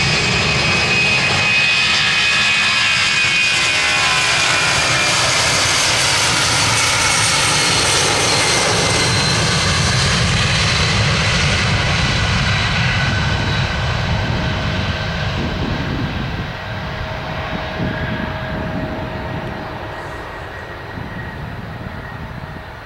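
Boeing 757's twin turbofan engines at takeoff thrust: a loud, steady jet noise with a high whine. It fades gradually over the last several seconds as the airliner lifts off and climbs away.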